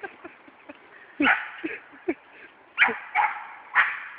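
Dog barking in play: a loud bark about a second in, a couple of lighter ones, then three more loud barks spaced about half a second apart in the second half.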